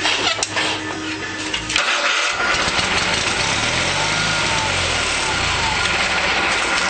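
The 20 HP Onan twin-cylinder engine of a 1986 Craftsman III lawn tractor being started. About two seconds in the sound gets louder and steadier, with a pitch that rises and falls.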